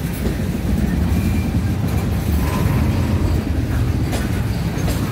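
Freight cars of a manifest train rolling past close by: a steady, loud low rumble of steel wheels on rail, with a few faint clicks over the rail joints.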